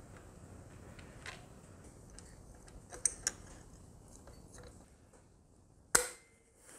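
Steel wrenches clinking faintly against the camshafts and each other as they are fitted. About six seconds in, locking pliers clamp the two wrenches together with a sharp metallic snap and a brief ring.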